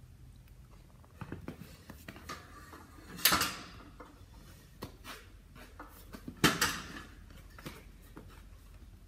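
A hex dumbbell and a padded weight bench knocking and rattling as the weight is set down and picked up again to switch sides. Two loud clunks come about three seconds and six and a half seconds in, with lighter knocks and shuffling between them.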